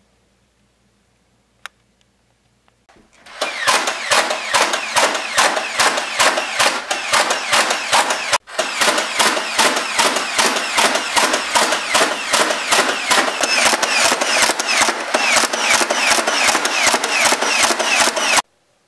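Rapid automatic gunfire, about four shots a second, starting about three seconds in, breaking off once for a moment near the middle and cutting off sharply near the end. A single sharp click comes just before it.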